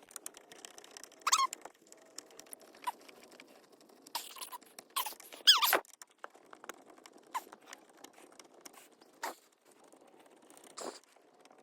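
Hand work on a steering column: scattered clicks, scrapes and short squeaks of plastic parts (clock spring and column trim) being handled and fitted, with the loudest squeak about five and a half seconds in.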